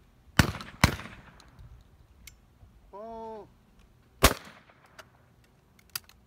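Shotgun shots at a trap range: two shots about half a second apart, then a short shouted call for the clay and, about a second later, another loud shot as the target flies. A smaller sharp crack follows near the end.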